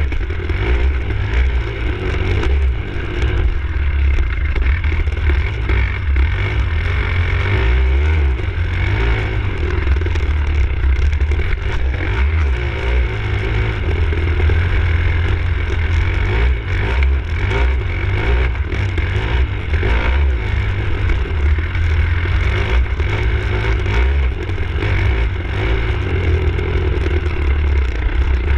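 Enduro dirt bike engine running and revving up and down as the bike rides over rough ground, with clattering and scraping from the bike over bumps and a heavy low rumble of wind buffeting the bike-mounted camera microphone.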